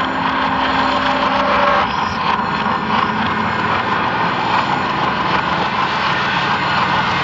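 Experimental horror-film score played in reverse: a loud, dense, steady noise drone with a few faint held tones underneath.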